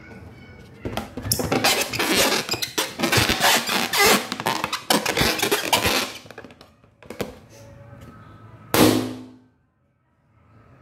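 An inflated latex balloon rubbing and bumping against the phone's microphone, giving a dense crackling rustle full of knocks and thumps. About nine seconds in there is one louder burst that fades within a second, followed by a moment of dead silence.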